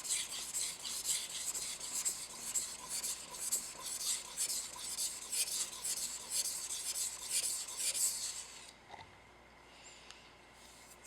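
Hammered Damascus santoku blade stroked back and forth across a 1000-grit whetstone, a quick run of gritty rasping strokes as the heel end of the edge is sharpened. The strokes stop about eight and a half seconds in.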